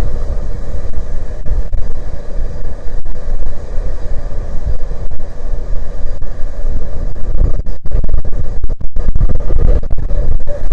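Strong wind buffeting the microphone: a loud low rumble that rises and falls in gusts, cutting out briefly a few times about three quarters of the way through.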